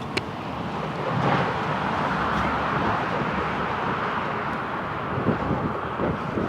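Steady rushing road and engine noise of a moving vehicle, swelling about a second in and holding.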